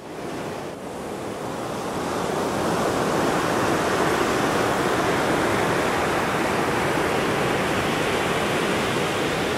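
Ocean surf breaking and washing up a sandy beach: a steady rushing wash of waves that swells over the first few seconds, then holds.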